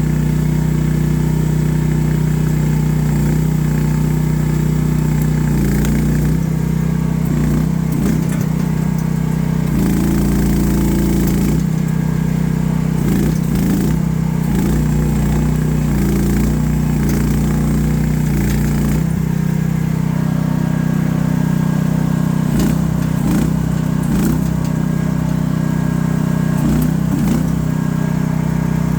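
AGT H12R mini excavator's small engine running steadily, its note shifting now and then as the machine works, most clearly about ten seconds in.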